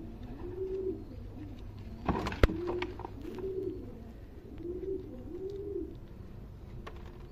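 Homing pigeons cooing: a run of low coos that rise and fall, about one a second. A single sharp click comes about two and a half seconds in.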